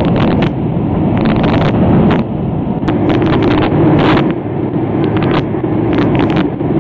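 Loud steady rush of an airliner's cabin during takeoff and climb, with frequent short rattles and clicks over it.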